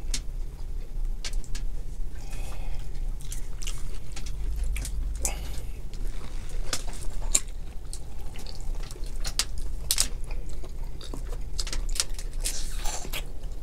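Boiled crab shells being cracked and picked apart by hand, giving irregular sharp clicks and crunches, with wet eating and chewing sounds.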